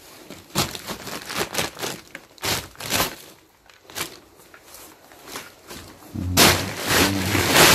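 Clicks, knocks and rustles of someone moving among a pile of junk and rubble, a quick run of them at first, then scattered, ending in a louder rustling scrape lasting about a second and a half near the end.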